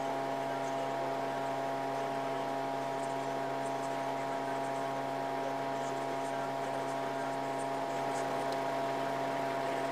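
Electric fan running steadily: a constant hum with several steady tones over a soft hiss.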